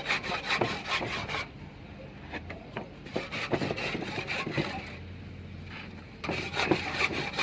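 Saw cutting a red clay brick in quick, rasping back-and-forth strokes, about four or five a second. The strokes stop about a second and a half in, leaving a few scattered knocks and scrapes, and start again about six seconds in.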